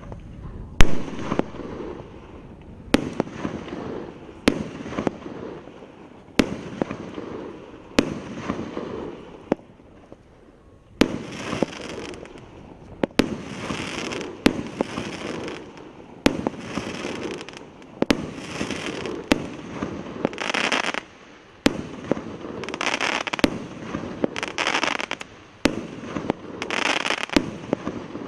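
Hallmark 'Pole Position' 25-shot firework cake firing shot after shot, with a sharp bang about every second and a half. Each bang is followed by a spell of hissing crackle from the bursting stars, and the crackle grows stronger in the second half.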